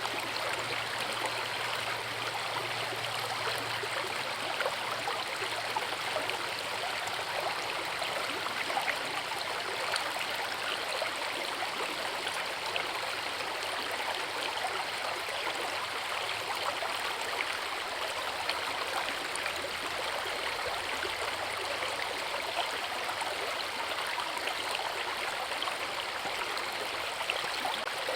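Forest river rushing steadily, a continuous, even splashing of flowing water with no breaks.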